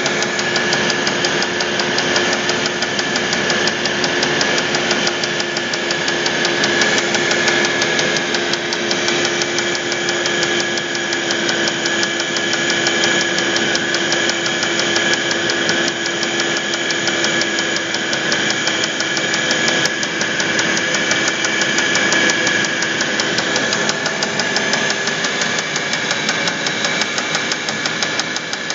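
Audi A8 D3 engine running with a fast, steady metallic knock: connecting-rod knock.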